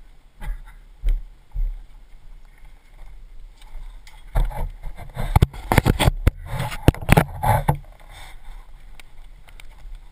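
Handling noise on the camera: three short thuds, then from about four seconds in a dense run of sharp knocks and rubbing on the microphone as the camera is covered and moved, over a steady low rumble.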